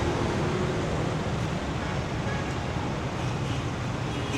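Steady rumble of street traffic, an even noise without distinct horns or knocks.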